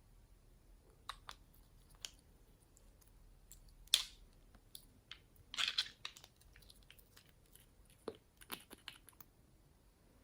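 Slime being handled and squished by hand, giving scattered soft clicks and crackles. The loudest comes about four seconds in, and a quick cluster follows shortly after.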